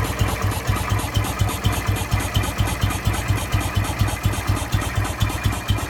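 BMW motorcycle engine idling with an even, fast beat and a regular tick at every beat. This is the unexplained mechanical noise the owner is trying to find.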